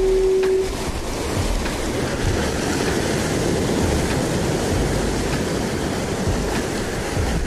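Ocean surf washing and breaking over jetty rocks, a steady rushing hiss, with wind buffeting the microphone in low rumbles.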